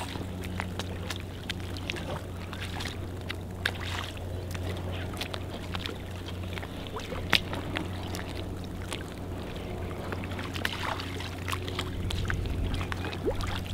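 Water lapping and slapping against a small boat at sea, with scattered light knocks, over a steady low motor hum.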